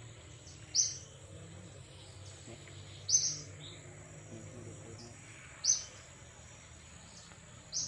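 A short, sharp, very high-pitched bird-like chirp repeated four times, about every two and a half seconds, over a steady thin high drone like insects.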